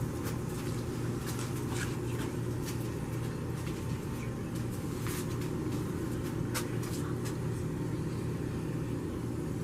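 Steady low hum holding a few fixed pitches, with faint irregular clicks and ticks scattered over it.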